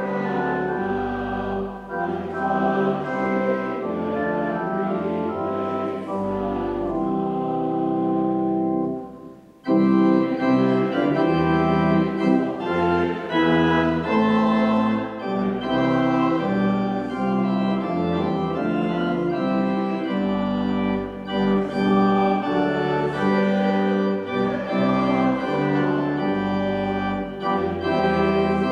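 Church organ playing a hymn, with the congregation singing along. About nine and a half seconds in, the sound drops away almost to nothing, then comes back in louder.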